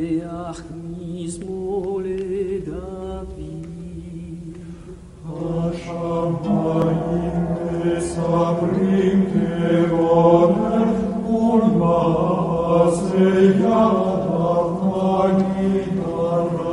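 Slow sung chant over a steady low drone, one thin line of voice at first, then fuller, louder voices coming in about five seconds in.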